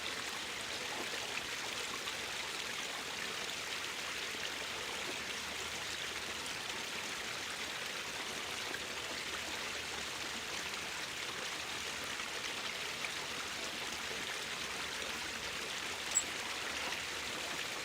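Gasoline-soaked power inverter burning out on mains voltage: a steady sizzling hiss with faint crackles, and one sharp pop about sixteen seconds in as a component fails.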